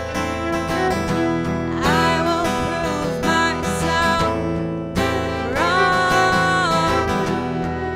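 Music: strummed acoustic guitar with a melody line that glides between notes.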